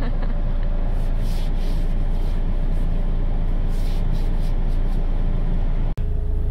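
Ice scraper rasping across a frosted car windshield in several short strokes, heard from inside the cabin over the steady hum of the Peugeot 206's idling engine.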